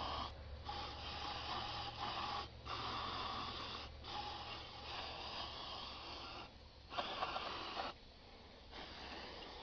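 Aerosol can of brake cleaner spraying in a steady hiss, stopping briefly several times between squirts, as the solvent washes grease residue out of a differential cover.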